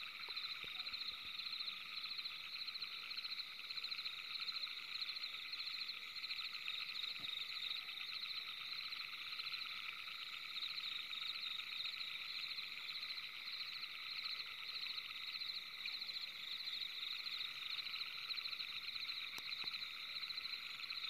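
Steady night chorus of many small calling animals: a continuous fast-pulsing trill in several high-pitched bands, fairly faint.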